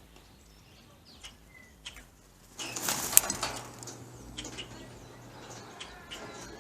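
A bird's wings flapping in a sudden loud flurry about two and a half seconds in, then settling down, with a few faint taps before it.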